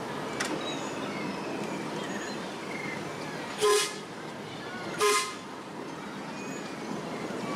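Miniature steam locomotive's whistle giving two short toots about a second and a half apart, over the steady running noise of the train moving along the track.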